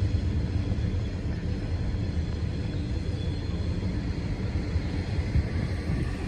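Distant freight train rumbling steadily as it climbs a mountain grade, a low, even rumble with no horn or clear engine beat.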